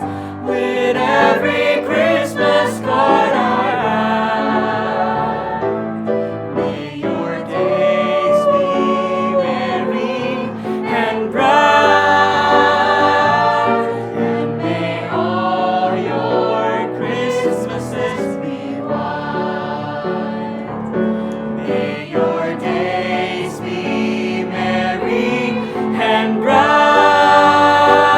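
Music: a vocal group singing in harmony over accompaniment.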